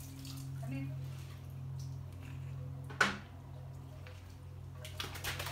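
A garden hose spray nozzle dropped onto the brick patio, knocking once sharply about three seconds in, over a steady low hum.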